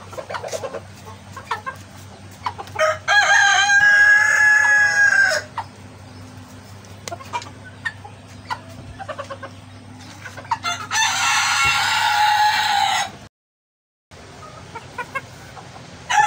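A gold-laced Sebright bantam rooster crowing twice, each crow about two and a half seconds long, with soft clucking between the crows.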